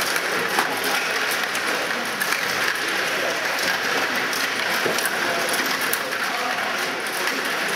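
Steady clatter of Stiga table hockey games: rods and plastic players clicking against pucks and rink boards across many tables in a busy tournament hall, with a murmur of voices underneath.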